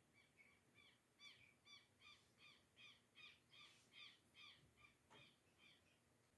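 A bird calling faintly in a quick, even series of short, harsh notes, about two or three a second, which stops shortly before the end.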